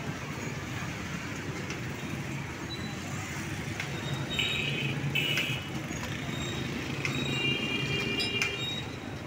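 Street traffic noise with a steady engine hum. Two short high beeps come about halfway through, and a longer high tone sounds near the end.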